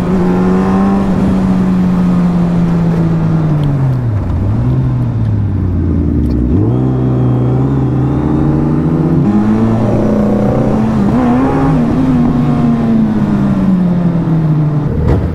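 Suzuki Hayabusa's inline-four engine under way: its note sinks over the first few seconds as the throttle closes, then climbs again from about nine seconds in and eases off near the end.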